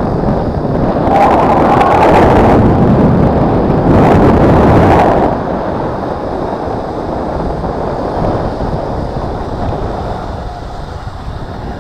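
Wind buffeting a camera's microphone carried along at cycling speed: a steady rush with two louder gusts, about a second in and about four seconds in, then it settles back to a lower, steadier rush.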